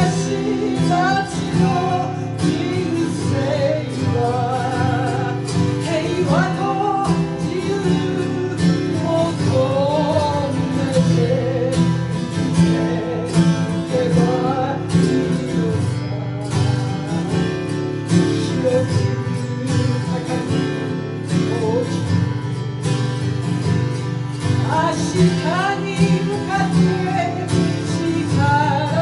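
Acoustic guitar and autoharp playing a song together: steady strummed and plucked chords with a wavering melody line above them.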